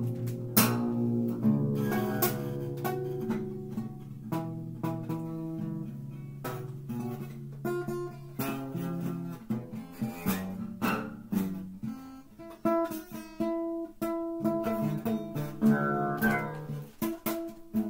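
Acoustic guitar music: plucked notes and strummed chords ringing out one after another.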